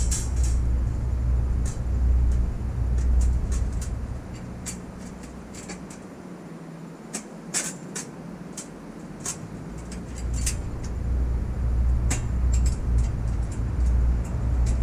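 Low rumble that fades for a few seconds in the middle and then returns, with scattered light clicks and taps as metal parts are handled at the bike's front basket rail.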